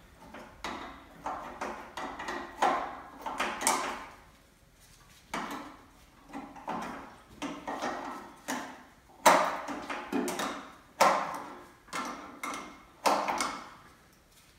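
Hand tools and metal parts clanking and scraping against the generator and its strap on a VW Beetle engine: a run of irregular metallic knocks and clicks, one or two a second. It goes quieter about four seconds in, and the loudest knocks come in the second half.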